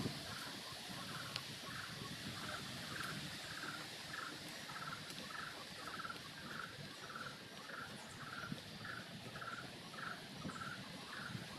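Faint, evenly repeated chirping call from a small animal, nearly two a second, over a steady outdoor background hiss.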